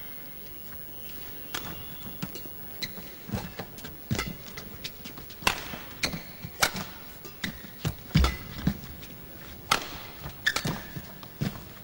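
Badminton rally: sharp racket strikes on the shuttlecock, roughly one every one to one and a half seconds, mixed with heavier thuds of the players' feet landing on the court.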